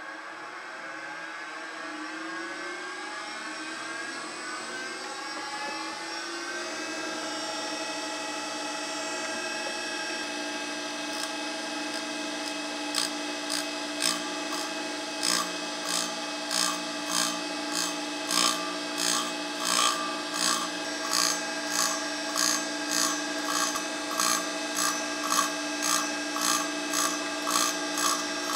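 Cutter grinder's motor spinning up, its whine rising in pitch over the first several seconds, then running at a steady speed. About eleven seconds in, a regular grinding pulse starts, about one and a half a second, as the thin, chipped diamond wheel cuts into the slip stone.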